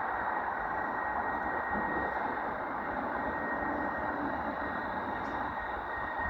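Train at a station squealing with a steady high-pitched tone over the rumble of its running noise.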